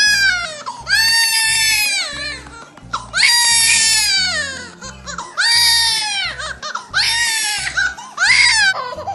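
A young child crying hard in a string of about six long, high wails, each about a second and falling off at the end, while being patted on the back and chest to loosen phlegm.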